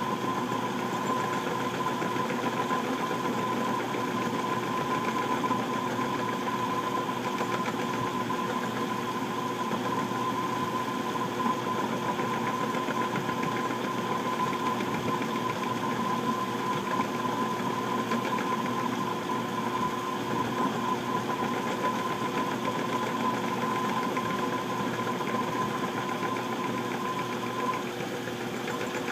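Small benchtop metal lathe running steadily as it turns a steel spoon bit on a taper, the compound slide fed by hand: a motor-and-gear hum with a steady high whine that drops away near the end.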